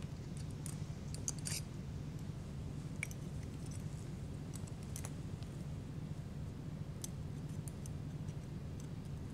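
Scattered light clicks and clinks of steel surgical instruments, a needle holder and forceps, handling a suture, over a steady low hum.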